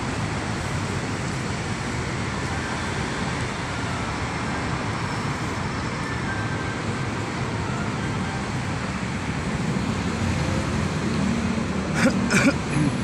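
Steady roadside city traffic noise, cars and motors running by, with a couple of brief louder sounds near the end.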